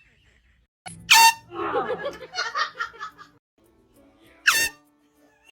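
Two short, loud air horn blasts about three and a half seconds apart, with a person laughing between them.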